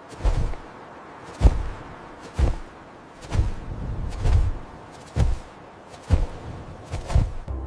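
A series of heavy thumps, about one a second, some with a sharp crack on top.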